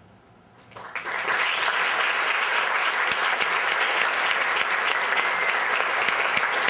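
Audience applause that breaks out a little under a second in and then goes on steadily.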